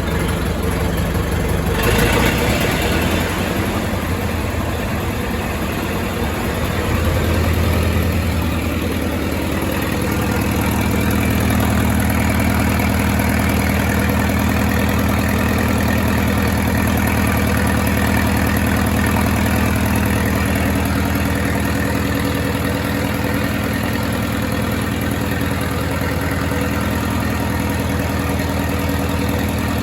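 1928 Farmall Regular's four-cylinder engine running, with a brief sharp noise about two seconds in. Its speed shifts around seven to ten seconds in, then it settles into a steady idle.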